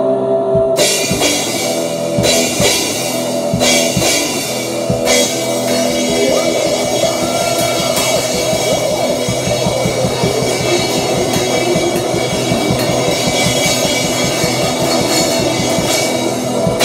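Rock music with distorted electric guitar and an acoustic drum kit played along, crash cymbals coming in under a second in. From about six seconds in the drums play a rapid, even run of hits, about eight a second, under held guitar chords until near the end.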